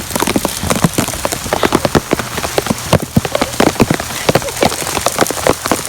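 Heavy rain, with many large drops striking close to the microphone in dense, irregular sharp taps over a steady low hum.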